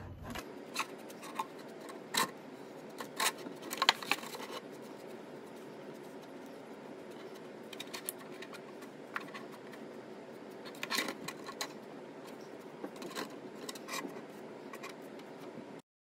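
Flat paintbrush scraping and dabbing acrylic paint onto a plastic milk jug, with scattered short scratchy strokes, taps and clicks from handling the jug over a steady low hiss. The sound cuts off suddenly just before the end.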